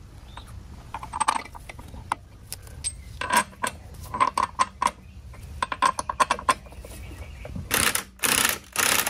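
Light metallic clinks and taps of lug bolts being handled and started in the alloy wheel's bolt holes, then near the end a cordless impact wrench running in short bursts, about three of them, driving the lug bolts home.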